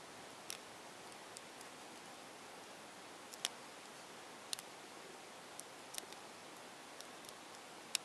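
Small sharp clicks at irregular intervals from a tiny 15 mm Maru Nano 3x3 twisty cube as its layers are turned by fingertips, over a steady faint hiss.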